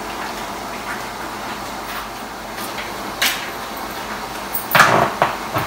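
Steady background hiss in a kitchen with a few brief clatters, one about three seconds in and a cluster near the end.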